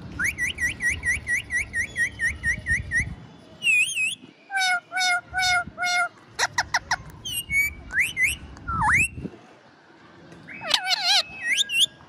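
Pet ringneck parrot whistling and calling: a fast run of about a dozen repeated whistled notes, then a string of varied whistles, chirps and sweeping calls.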